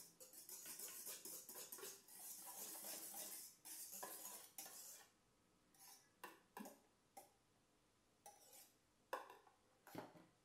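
Wire whisk stirring stiffly beaten egg whites in a stainless steel bowl: rapid scratchy strokes of wire against metal for about five seconds. Then a spatula gives a few separate scrapes and knocks against the bowls as the whites are scooped out.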